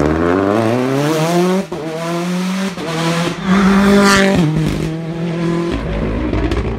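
Rally cars at full throttle: a Peugeot 208 rally car accelerating hard out of a hairpin, its engine note climbing steeply before a short break at a gear change, then another rally car passing close by at speed, loudest about four seconds in.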